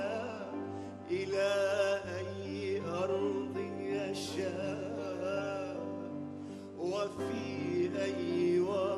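A male singer performs an Arabic song live with ornamented, wavering vocal runs, accompanied by a grand piano.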